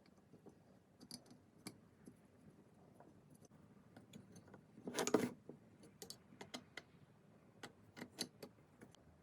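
Faint metal clicks and clinks of a hand plane's parts being handled and fitted back together, with a louder short metallic rattle about five seconds in.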